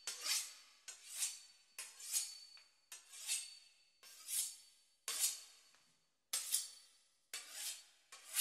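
A knife sawing through the crisp pastry crust of a beef Wellington, a rasping stroke about once a second, each starting sharply and fading away.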